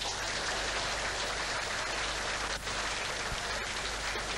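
An audience applauding, many hands clapping at once in a dense, steady patter.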